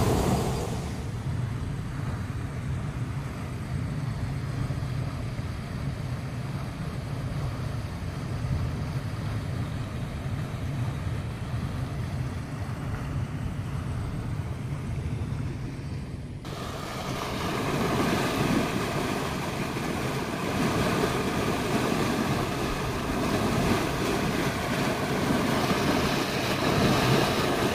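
Irrigation canal water flowing steadily, with wind rumbling on the microphone. About two-thirds of the way through the sound changes abruptly to a louder, brighter rush of water.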